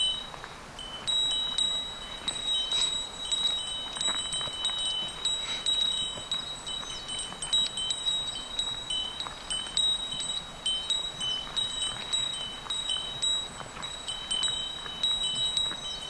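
Bear bell jingling steadily on a hiker's gear, struck over and over at an uneven walking rhythm. Each strike starts a bright, high ring that carries on between strikes.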